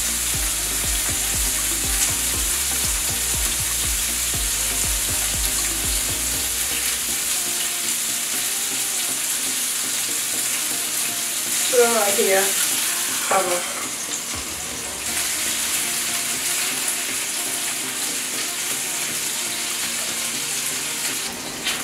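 Ground-beef burger patties sizzling steadily in their fat on a flat griddle. A few short falling squeaks come through about twelve seconds in.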